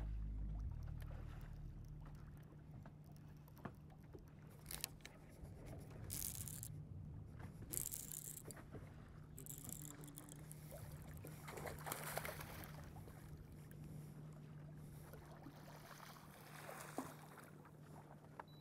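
Faint steady hum of a bass boat's electric trolling motor holding position, with a few brief rushes of wind noise and water slapping the hull.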